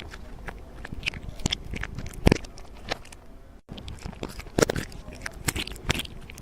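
Irregular crunching and crackling: a series of sharp crunches of varying strength, with a short break a little past halfway.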